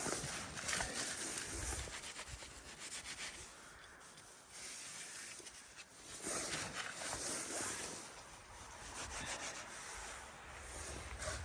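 Dry dirt being scraped and rustled while a trap is bedded and covered in a dirt-hole set, in several bursts with short pauses between.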